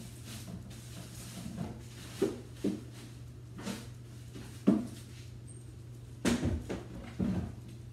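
Kitchen trash can and plastic garbage bags being handled: a series of short knocks and plastic rustles, the sharpest about halfway through and a cluster near the end, over a steady low hum.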